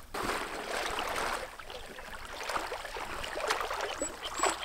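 River water sloshing and splashing as a wading angler fights a hooked northern pike, with sharper splashes from the fish thrashing at the surface.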